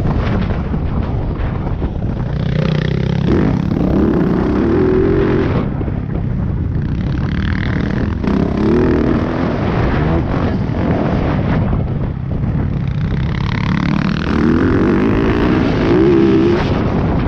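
Yamaha YZ450F dirt bike's four-stroke single-cylinder engine being ridden hard, its note climbing under throttle three times and falling back in between, over steady wind rush on the microphone.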